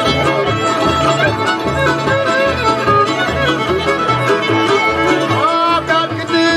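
Old-time string band playing live, a fiddle leading the melody with slides over guitar, mandolin and upright bass, the bass keeping a steady beat of about two notes a second.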